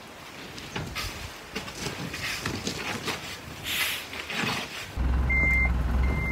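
Truck reversing: its back-up alarm beeps twice over a steady low engine rumble that starts suddenly about five seconds in. Before that there is only uneven outdoor noise with scattered knocks.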